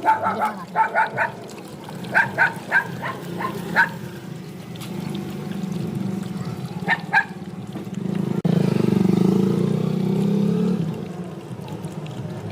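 A puppy yipping in a quick run of short, high barks over the first few seconds, then twice more about seven seconds in, over a steady low rumble that swells for a couple of seconds near the end.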